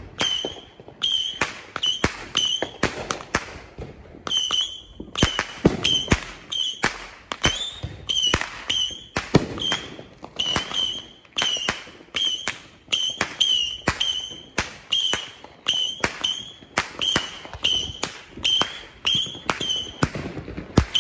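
Firecrackers popping one after another at an uneven pace, about two a second, each pop followed by a short high-pitched ring.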